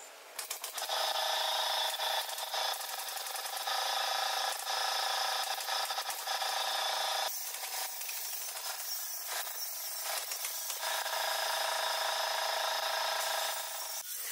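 Steady whine of a workshop power tool with scattered sharp clicks; the sound changes about seven seconds in and drops away near the end.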